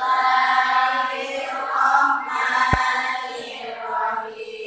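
A group of girls chanting a nadom, a rhymed Islamic creed verse, in unison and without accompaniment. A brief low thump about halfway through.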